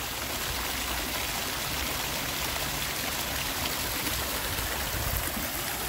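Running water in a garden water feature, a steady even rush with no break.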